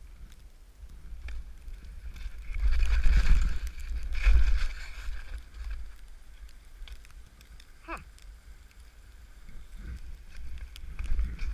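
Skis hissing through deep powder snow, with wind rumbling on the camera microphone. The snow noise swells for a couple of seconds about three seconds in, as the skier turns, and a short squeak falling in pitch comes near eight seconds in.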